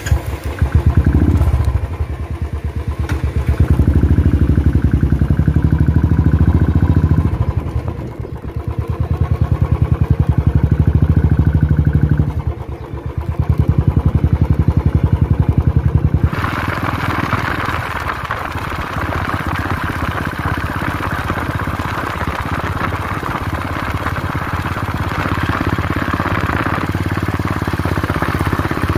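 A vehicle engine running close by, repeatedly revving up and easing off, as when pulling away and changing gear. About halfway through the sound changes suddenly to a steadier, lower engine note under a rushing hiss of wind or road noise.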